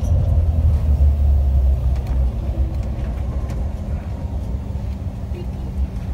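Low rumble inside the cabin of a CRJ700 regional jet rolling out on the runway after touchdown, easing off slightly after the first couple of seconds. A steady low hum sets in near the end.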